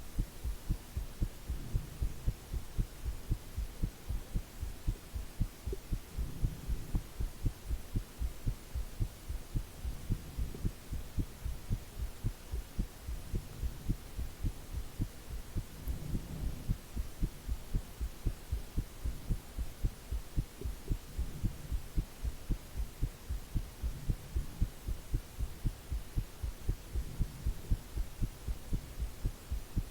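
Human heartbeat recorded close up: a regular train of low beats under a constant hiss of white noise.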